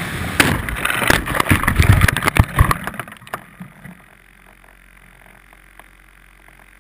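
Onboard sound of an RC plane crashing into brush and tree branches: a loud rush of noise with repeated knocks and scraping for about three seconds, dying away as the propeller stops, then quiet with a few faint ticks.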